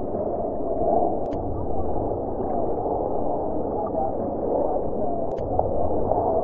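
Muffled murmur of a crowd of spectators, many voices talking at once with no single voice standing out.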